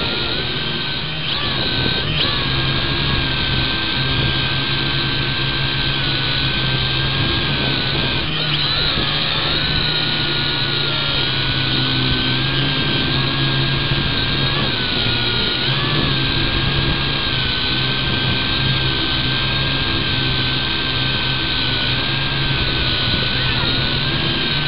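V686G quadcopter's motors and propellers whining steadily in flight, a high tone with a low hum beneath it, the pitch dipping and rising briefly every few seconds as the throttle is worked.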